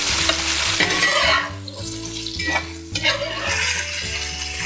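Sliced vegetables sizzling in oil in a cast-iron pan on high heat, stirred and tossed with a spatula. The sizzle dips briefly about halfway through, then picks up again.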